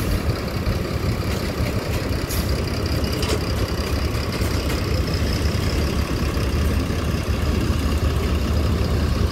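Diesel engine of a Mercedes-Benz OH 1526 coach running at a low steady rumble as the bus creeps up the ramp into a ferry. The rumble grows a little louder near the end.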